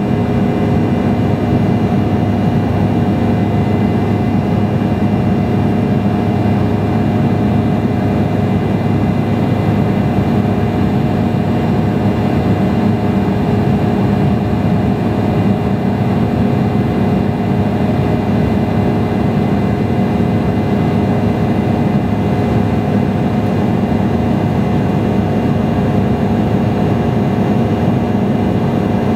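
Steady cabin noise of an Embraer E175 regional jet in flight: the rush of airflow and the hum of its General Electric CF34-8E turbofan engines, with a few steady whining tones running through it.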